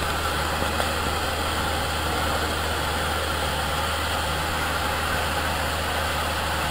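Cessna light aircraft's piston engine and propeller running steadily, heard inside the cabin: a strong low hum under an even hiss.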